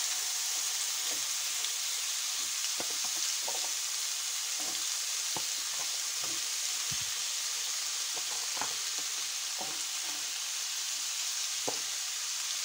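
Frozen beef-and-cheese köfte frying in a hot, lightly oiled grill pan, put in straight from frozen: a steady sizzling hiss with scattered small pops and crackles.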